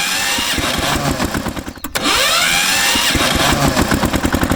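An engine running with a fast, even pulse that dips briefly a little under two seconds in, with short swooping tones repeating over it.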